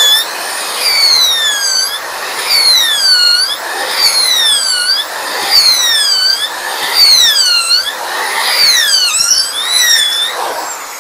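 570-watt corded electric drill, its motor rewound with copper wire, boring a 10 mm hole in a block of wood. The motor whine sags in pitch each time the bit is pressed in and rises again as it is eased back to clear the chips, about once a second.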